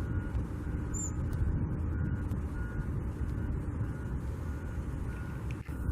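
Backup alarm of a construction vehicle beeping steadily with short, evenly spaced beeps, fainter than a constant low rumble of engines and traffic.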